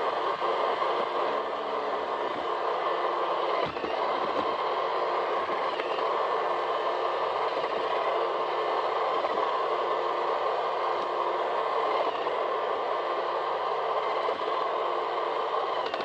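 iRobot Roomba 885 robot vacuum running: the steady whirr of its vacuum motor and brush roll, with a brief knock about four seconds in.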